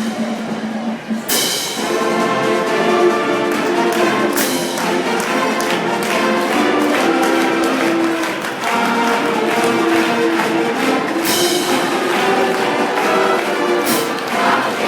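School band and orchestra playing live: sustained chords from brass and strings, with percussion strikes every few seconds.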